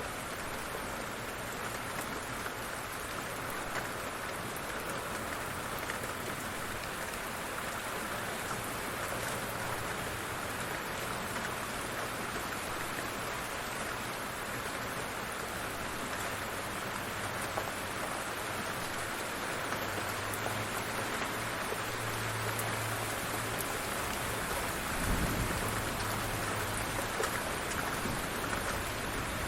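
Light rain falling steadily, an even hiss of drops on surfaces, with a brief low rumble near the end.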